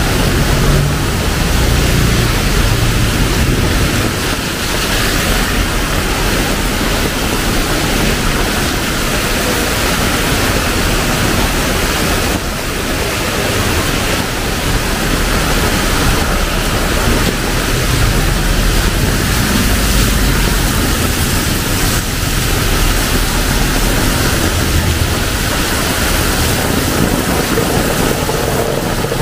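Heavy rain pouring down on pavement and street, a loud, steady wash of noise, with a low rumble coming and going underneath.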